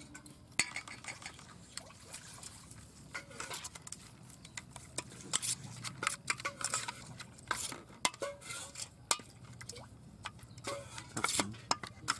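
A steel spoon stirring wet ground coriander paste in a stainless steel bowl, mixing in salt and sugar, with frequent irregular clinks and scrapes of the spoon against the bowl.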